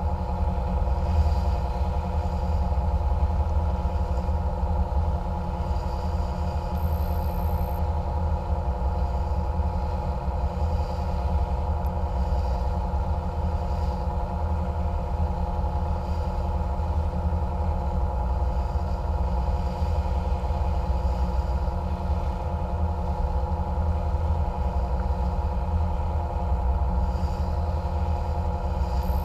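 Catamaran water bus's engines running steadily under way: a constant drone over a deep rumble.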